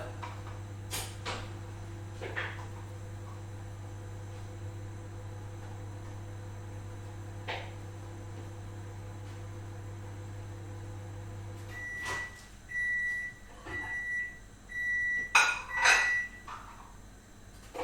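Microwave oven running with a steady low hum, a few faint clicks along the way. It stops about twelve seconds in and gives a series of short beeps for the end of the cycle, mixed with loud clunks and clatter near the end.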